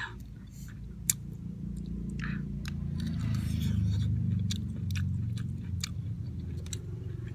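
A person chewing a raw calamondin, with wet mouth clicks and smacks scattered throughout. A low hum swells and fades in the middle.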